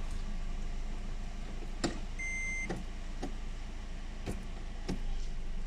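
A short electronic beep of about half a second comes just after two seconds in. Several sharp clicks and knocks fall around it, over a steady low hum.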